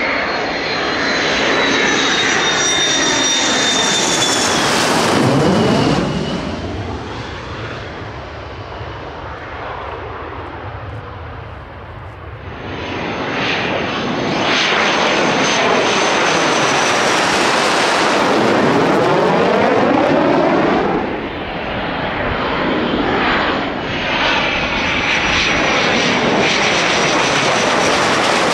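Twin-engine fighter jets, an F/A-18 Hornet among them, passing low overhead. The jet noise is loud, with a high whine that falls in pitch as a jet goes over. It dies down about six seconds in and builds again from about twelve seconds as the next jet comes over.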